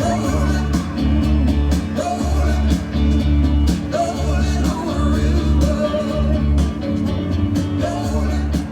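Loud rock music with singing and a heavy, regular bass beat, played over a concert PA system.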